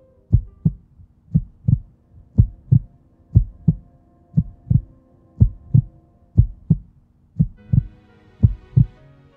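Heartbeat sound effect: deep double thumps, about one pair a second, nine in all, over a soft sustained music bed. A brighter music layer comes in near the end.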